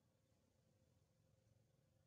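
Near silence: only a faint, steady low hum.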